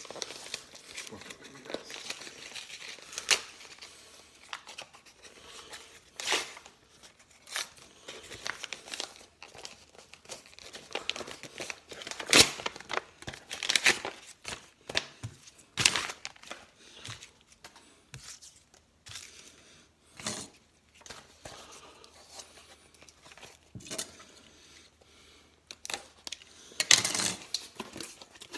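A white mailing envelope being torn open and crumpled by hand: irregular short ripping and crinkling sounds, with the loudest rips around the middle and near the end.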